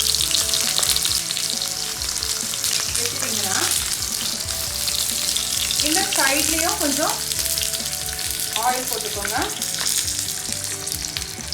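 Banana-leaf-wrapped pomfret sizzling in oil on a hot tawa: a steady hiss with fine crackling throughout.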